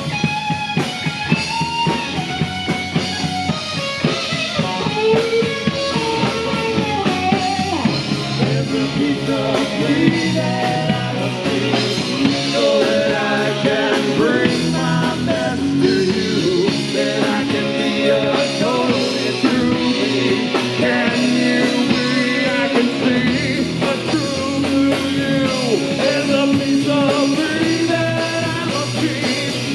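A three-piece rock band playing live: electric guitar, bass guitar and drum kit, loud and continuous.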